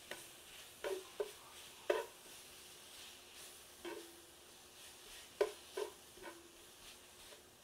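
Metal tongs stirring sliced onions in a frying pan: a few sharp clicks and scrapes of the tongs against the pan over a faint sizzle of onions cooking in butter.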